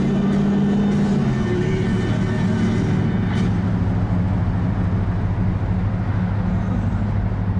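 Cabin noise of a 1968 Ford Galaxie under way: a steady low engine drone with road and wind noise. Radio music fades out in the first second or two.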